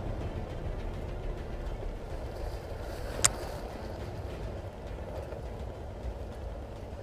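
Steady low rumble, with one sharp crack about three seconds in, like a single airsoft gun shot.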